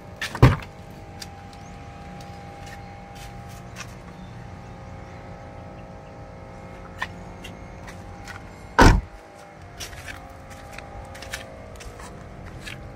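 Two loud thumps from the Suzuki Carry DA63T mini truck's cab door, about eight seconds apart: the door being worked open and then shut, the second thump the louder and deeper. Small clicks and a steady low hum run underneath.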